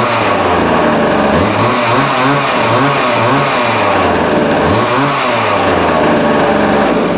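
Vintage Montgomery Ward 10-inch two-stroke chainsaw running and being revved up and down in a string of quick throttle blips. It is run to pump bar oil out onto the chain. The engine cuts off suddenly at the end.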